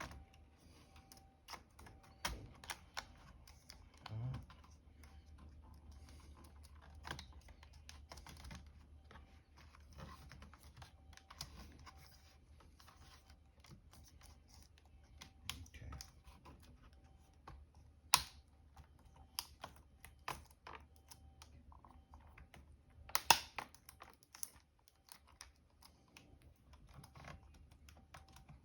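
Scattered light clicks and taps of a replacement laptop keyboard being handled and fitted into a Dell Latitude E7440, with a few sharper clicks about 18 and 23 seconds in.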